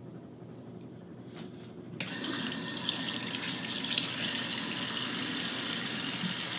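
Bathroom sink tap turned on about two seconds in, then water running steadily into the basin, with one brief sharp knock or splash about four seconds in.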